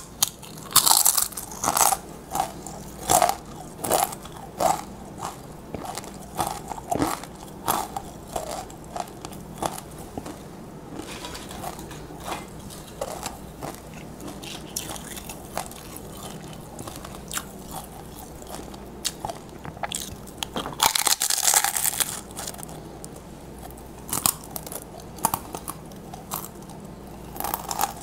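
Close-miked crunching and chewing of tortilla chips: sharp, crackly crunches bite after bite, dense at first and thinning out, with a loud burst of crunching about three-quarters of the way through.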